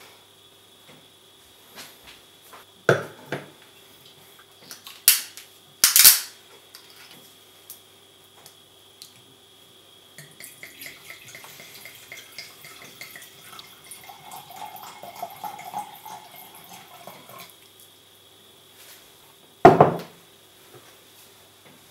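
Red wine poured from a glass bottle into a wine glass, a trickling gurgle lasting about seven seconds, then the bottle set down on the wooden table with a loud knock near the end. A few sharp knocks come before the pour.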